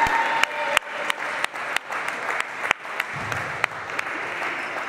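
Spectators applauding in a gym, with individual sharp claps standing out about three times a second over general crowd noise.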